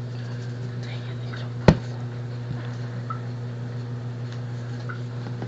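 A steady low hum, with one sharp knock about a second and a half in and a few faint ticks.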